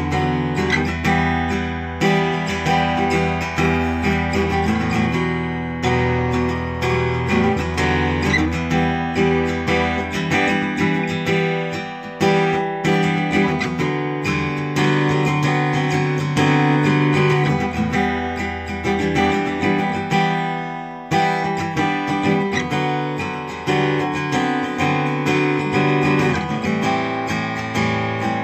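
Taylor Academy 12e acoustic guitar played through a Line 6 Helix, strumming and picking chords in a steady rhythm.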